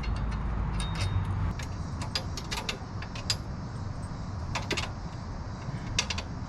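Scattered metallic clinks and rattles of motorcycle crash-bar hardware and tools being handled during fitting, over a low steady hum, with a cluster of sharper clicks about six seconds in.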